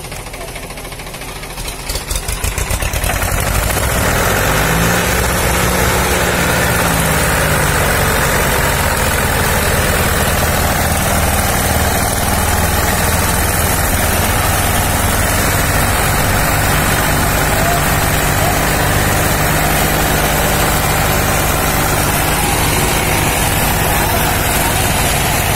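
Diesel engines of a Mahindra 265 DI and an Escort 335 tractor revving up over the first few seconds, then running hard and steady under load as the two chained tractors pull against each other in a tug-of-war.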